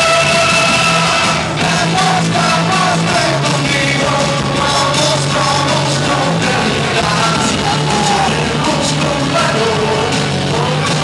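A man singing into a microphone over loud rock music, holding some long notes.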